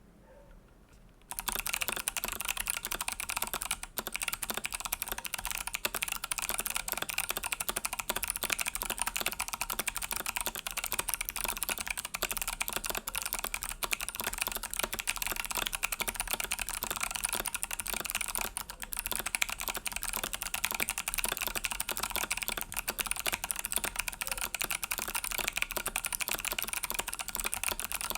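Fast continuous typing on a custom mechanical keyboard with clicky Kailh Box White switches on a brass plate, under Infinikey Hive keycaps. The rapid run of sharp clicks starts about a second and a half in.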